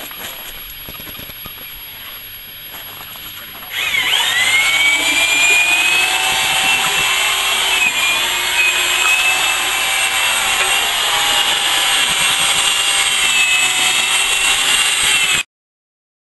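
Quiet work sounds at first, then about four seconds in a loud, steady machine whine with several pitches cuts in suddenly, typical of a power tool's motor. It wavers slightly in pitch and stops abruptly near the end.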